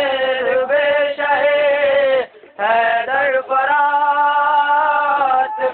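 A man singing a marsiya, the Urdu elegy for Hazrat Abbas, in long, drawn-out melodic phrases. He breaks briefly for breath a little over two seconds in.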